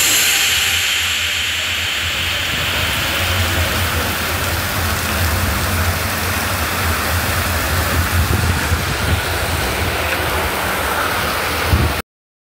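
Heavy rain pouring onto a street, a steady hiss with a low rumble underneath. It cuts off suddenly near the end.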